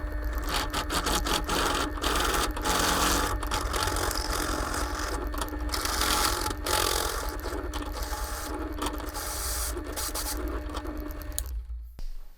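Electric drill running steadily under load, cutting a hole in the power supply's sheet-metal case for a fuse holder, with a rough scraping texture; it stops abruptly near the end.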